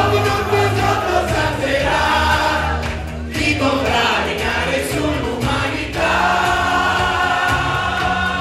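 A man sings a cartoon theme song live into a microphone over a backing track, holding a long note near the end.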